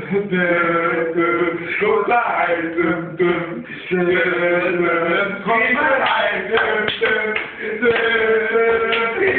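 Several men singing or chanting together in unison, with long held notes and short breaks between phrases.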